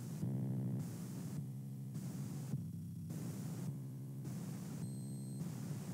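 A low steady hum mixed with static hiss, the hiss swelling and fading in a regular pulse a little over once a second.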